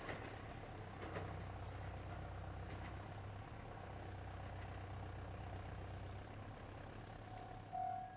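Low, steady diesel engine rumble of a railcar that has just passed, fading out after about six and a half seconds. Near the end, a level-crossing warning bell starts ringing in even pulses.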